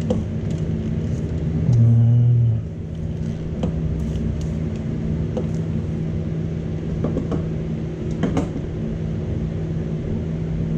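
Scattered light metallic clicks and knocks of parts and tools being handled while a turbo is worked into place in an engine bay, over a steady mechanical hum. A loud low buzz lasts just under a second about two seconds in.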